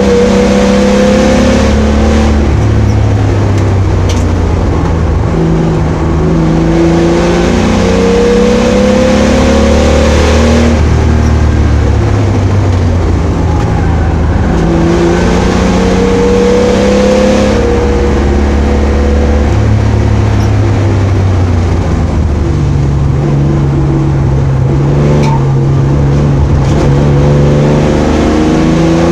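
Opel Commodore A's straight-six engine driven hard on a track, its pitch climbing for a few seconds at a time and dropping back at each gear change or lift, over and over.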